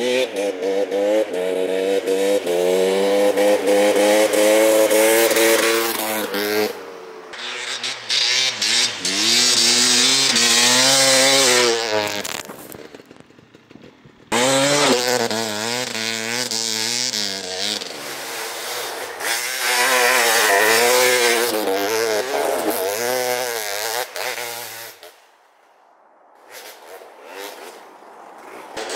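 Single-cylinder two-stroke engine of a KTM 300 XC-W dirt bike with a full FMF exhaust, revving hard, with its pitch climbing and falling again and again as the bike accelerates and shifts. The sound breaks off suddenly twice.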